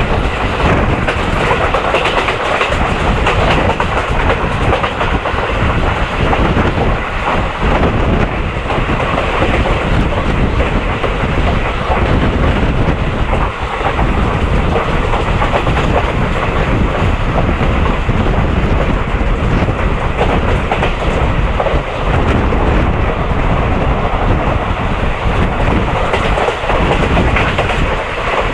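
Electric train running at speed, heard from the coach coupled behind a WCAM1 dual-voltage electric locomotive: a loud, steady rumble of wheels on rail with clickety-clack from the rail joints.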